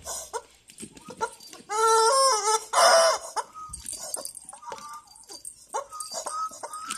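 Rubber screaming-chicken toy being bitten and squeezed by a dog: a wavering squeal about two seconds in, then a hoarse, breathy screech, followed by short choked squeaks. Water in the toy's throat makes the squeaks breathy and choked.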